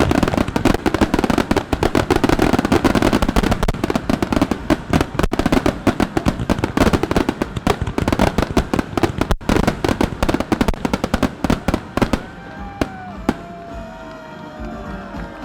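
Fireworks finale barrage: a dense, rapid run of shell bursts and crackling reports that thins out about twelve seconds in to scattered pops, with a few gliding whistle-like tones.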